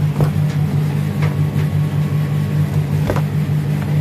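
A steady low mechanical hum, with a couple of light knocks, one just after the start and one about three seconds in.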